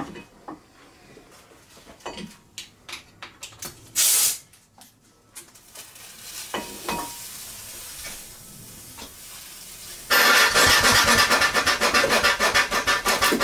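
Small clicks of fittings being handled and a short blast of compressed air, then, about ten seconds in, a small vertical stationary steam engine starts running on compressed air, with fast, even exhaust beats and hiss as steam oil is blown through to lubricate its cylinder.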